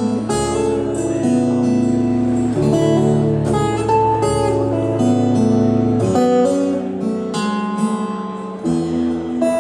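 Solo acoustic guitar played fingerstyle: plucked chords and a melody line ringing over a low bass note that is held for about six seconds before the harmony changes.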